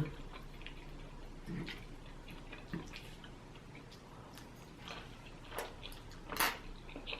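Quiet eating sounds: scattered soft clicks and smacks of a person chewing food, with a slightly louder one about six and a half seconds in.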